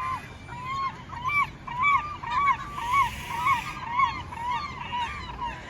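A large bird calling in a rapid series of loud calls, about two a second, loudest in the middle and tailing off near the end.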